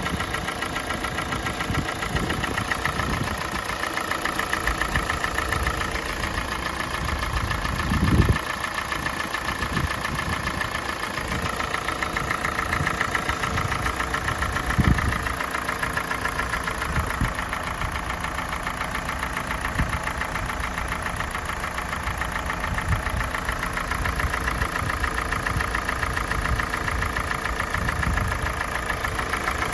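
Kia Sportage's G4NA 2.0-litre four-cylinder petrol engine idling while warming up, with a rapid, ringing knock that comes in as it warms; the owner doubts it is piston knock and suspects the cam phasers or valves. Two louder thumps about eight and fifteen seconds in.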